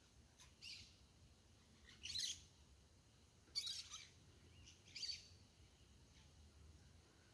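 A bird calling: four short, high chirps spaced about a second apart against a quiet background.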